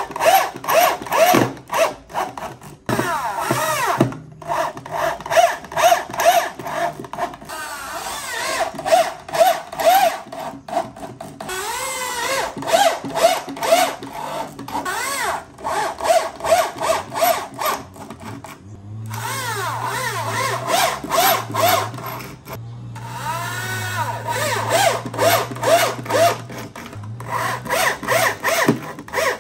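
Corded electric drill driving screws into the wooden top panel of a subwoofer cabinet. The motor runs in quick repeated spurts that rise and fall in pitch as the trigger is worked, with short pauses between screws.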